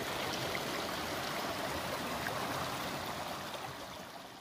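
Stream running with a steady rush of water, fading out near the end.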